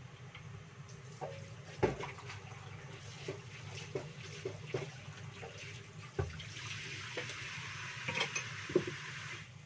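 Round wooden chopping board being washed in a stainless steel sink: a series of knocks and scrapes as it is handled, the loudest knock about two seconds in. From about six and a half seconds the tap runs over it, stopping just before the end.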